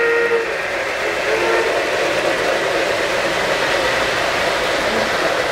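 Model train freight cars rolling past on three-rail O-gauge track, a steady rumble of wheels on rails. The tail of a model train whistle stops just after the start.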